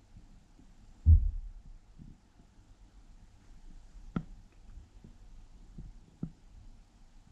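Impact noise coming down through the ceiling from the flat above: one heavy, deep thud about a second in, typical of someone jumping off furniture onto the floor upstairs, then a few lighter knocks and bumps.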